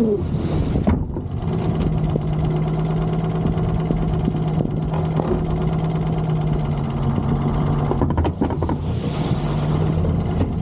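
Diesel engine running at a steady speed, with a short hiss in the first second and another near the end.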